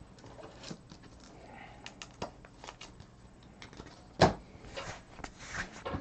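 Trading cards and packs being handled on a tabletop: faint scattered clicks and rustles, with one sharp knock about four seconds in.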